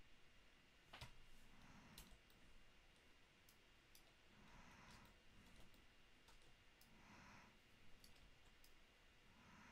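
Near silence, broken by faint, irregular clicks of a computer mouse and keyboard. A thin, steady high whine runs underneath.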